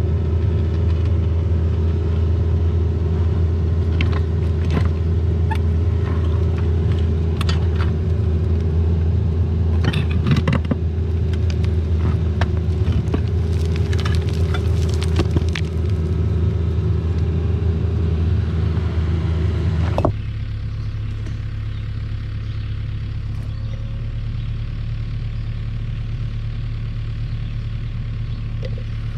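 CAT 304 mini excavator's diesel engine running under work, a steady low hum with scattered clinks and scrapes. About twenty seconds in, the sound drops suddenly to a quieter, steadier hum.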